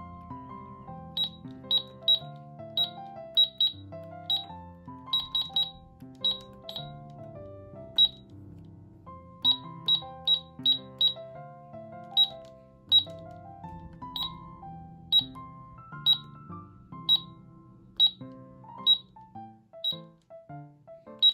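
Toy cash register keypad beeping as its number keys are pressed: a quick, uneven run of short high beeps, roughly one or two a second, over background music.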